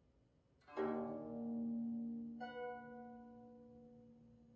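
Guzheng strings plucked about a second in, a low note and its overtones ringing and slowly fading; a higher note is added about a second and a half later and left to ring out.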